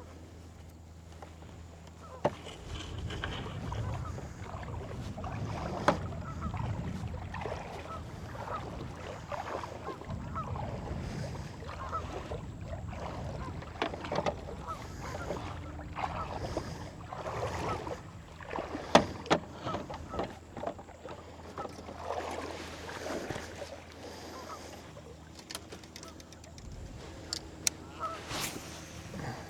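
Birds honking over and over, with a few sharp knocks in between.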